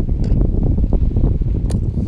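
Wind buffeting the microphone as a loud, steady low rumble, with a couple of sharp clicks from hands working a baitcasting reel.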